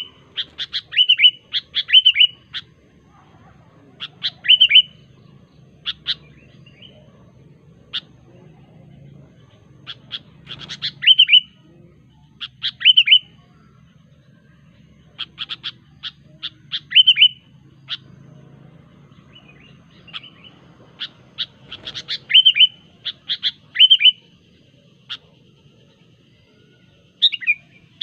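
Sooty-headed bulbul (kutilang) singing: short phrases of sharp, quick notes that end in a bubbly whistled note, repeated a dozen or so times with pauses of a second or more between, over a faint low hum.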